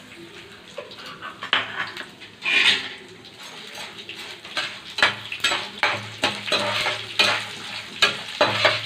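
A utensil stirring and clinking against a pan while mustard seeds, dals, curry leaves and dried red chillies sizzle in hot oil for a tempering. It is a run of sharp clicks and scrapes over the sizzle, coming thicker in the second half.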